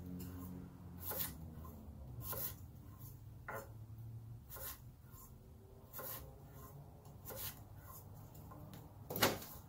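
A kitchen knife cutting red potatoes and knocking on a wooden cutting board, one chop roughly every second. The loudest chop comes near the end.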